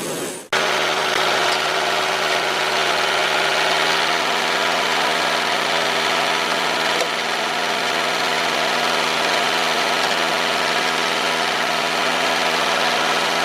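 A small motor running steadily with a continuous buzzing drone, cutting in abruptly about half a second in.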